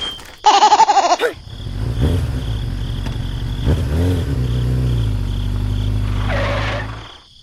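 A short wavering bleat like a goat's, then a low steady engine hum that rises in pitch briefly twice and cuts off near the end.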